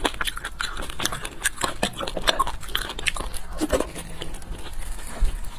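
Close-miked eating of braised beef bone marrow: wet mouth smacking and slurping, with many small sharp clicks of a metal spoon against the bone.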